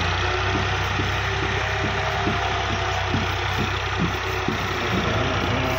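Massey Ferguson 260 Turbo tractor's three-cylinder diesel engine running steadily while the tractor works a heap of soil, with short sharp knocks at uneven intervals over the engine hum.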